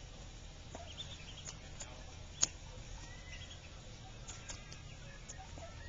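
Mallard ducklings peeping softly and pecking at feed pellets: scattered small clicks and short high squeaks, with one sharp click about two and a half seconds in.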